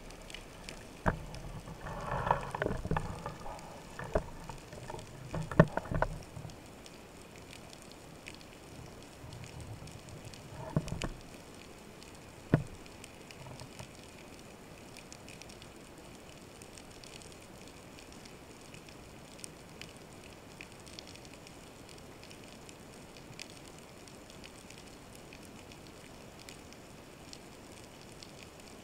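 Underwater, a spearfisher's gear knocks and scrapes for the first several seconds, with a couple more knocks about ten to thirteen seconds in. After that only a faint, steady underwater crackling remains.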